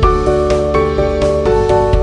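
Background music: soft instrumental melody with a steady beat.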